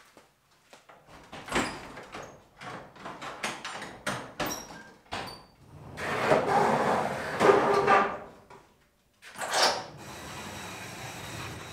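Footsteps on a concrete floor, then a large metal-clad sliding shop door rolled open along its track, a long grinding rumble with a faint squeal. A short loud clatter follows about a second later.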